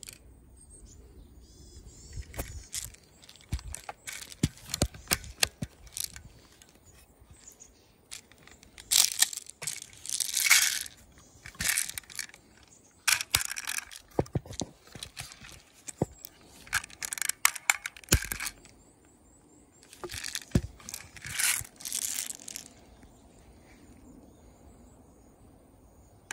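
Homemade wooden airsoft crossbow being handled and cocked: repeated clicks, knocks and rattles of wood and metal parts, with several bursts of rustling and scraping a second or two long.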